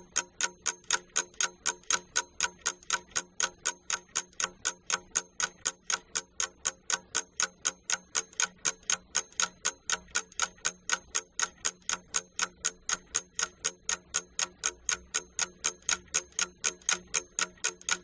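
Clock-ticking sound effect used as a quiz countdown timer: a steady, even run of sharp ticks, about four a second, marking the time allowed to answer.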